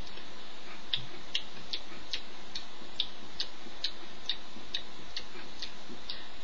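Steady, light, regular ticking, about two to three ticks a second, over a faint steady hiss.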